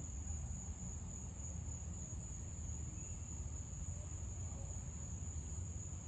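Insects trilling outdoors: one steady, continuous high-pitched tone with no breaks, over a low background rumble.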